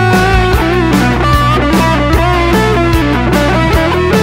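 Electric guitar playing a lead melody with string bends, backed by a rhythm track of drums and bass.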